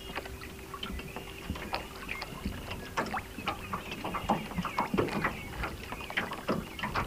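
Small waves lapping and splashing irregularly against a small boat's hull. A faint steady hum stops about three seconds in.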